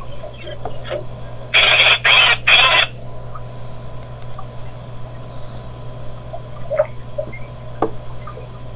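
Outdoor wildlife-camera sound: faint, scattered short bird chirps over a steady low hum, broken about a second and a half in by three loud, harsh noisy bursts in quick succession.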